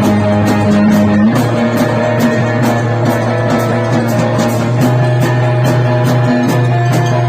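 A band rehearsing krautrock-style rock: guitar and bass hold sustained notes that shift about a second in, over a steady tick of cymbals about three times a second.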